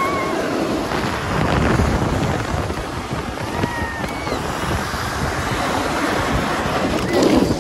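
Rushing wind on the microphone and a snow tube sliding fast down a packed-snow tubing lane, with a few brief high squeals.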